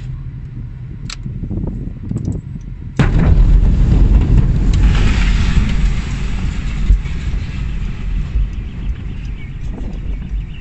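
Blast wave of the Beirut port ammonium nitrate explosion reaching a car, heard from inside the cabin: low road noise, then about three seconds in a sudden, very loud boom followed by heavy rumbling that slowly fades over several seconds.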